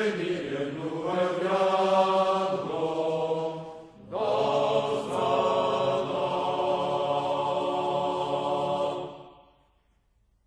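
Male voices singing a slow song together in chorus, holding long notes. The singing breaks off about four seconds in, starts again, and fades out near the end.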